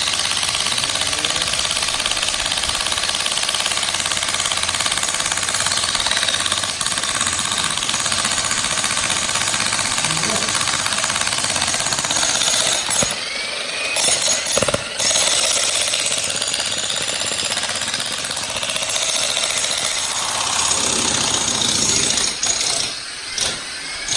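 Jackhammer breaking up ground, hammering continuously with short pauses about halfway through and again near the end.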